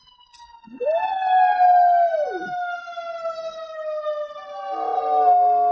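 A siren wailing with a slowly falling pitch while a golden retriever howls along with it. One howl rises, holds and drops away between about one and two and a half seconds in, and a second howl starts near the end.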